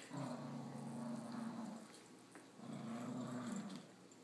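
A puppy play-growling during a game of tug of war: two long, low growls, each over a second, with a short pause between.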